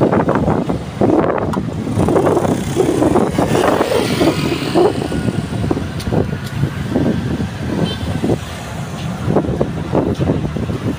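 Road traffic on a busy city street: cars and motorbikes passing in an uneven, continuous rumble that swells and dips.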